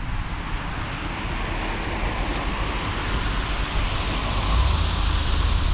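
A car passing on rain-wet pavement, its tyre hiss swelling toward the end, with a low rumble building near the end.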